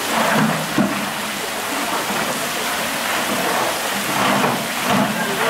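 Steady rush of running water in a polar bear enclosure's pool, with the voices of onlookers chattering over it now and then.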